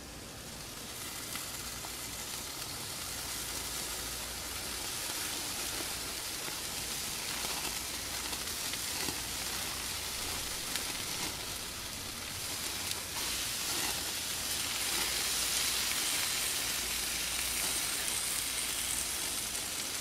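Marinated blacktip shark steaks sizzling on a gas grill: a steady hiss that builds over about the first second.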